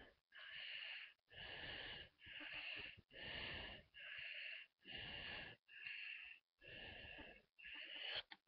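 Faint pen strokes scratching back and forth on paper while shading a drawing, about ten even strokes at a little over one a second.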